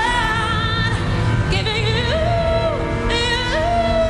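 Female lead singer holding long notes with vibrato over a live pop band.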